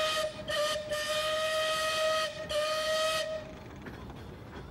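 Steam whistle sounded in long blasts with short gaps, one steady note over a breathy hiss, stopping about three and a half seconds in.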